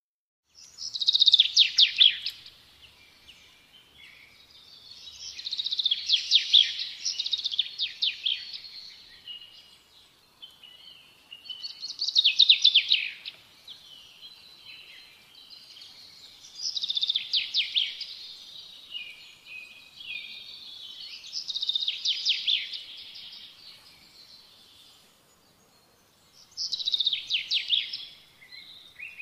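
A songbird singing: six phrases of rapid trilled notes, each a second or two long, a few seconds apart.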